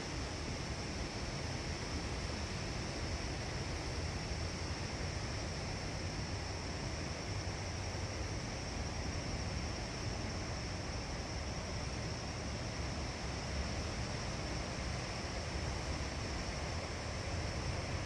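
Steady outdoor background noise in woodland: a low rumble under an even hiss, with a constant high-pitched hum.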